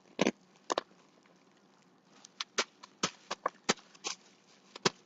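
Bubble wrap crinkling and crackling as it is handled and taped: a run of short, sharp, irregular clicks, coming thicker in the second half.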